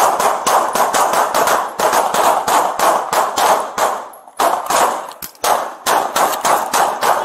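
Police handgun fire: a rapid volley of gunshots, several a second, with a brief pause about four seconds in before the shooting resumes.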